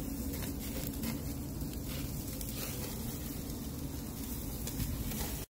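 Skewered meat cubes sizzling over hot charcoal, with faint crackles from the coals and dripping fat, over a steady low rumble. The sound cuts off suddenly at the very end.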